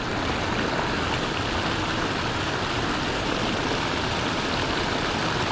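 Steady rush of churning, aerated water pouring into the fishing hole, an even noise without any change in level.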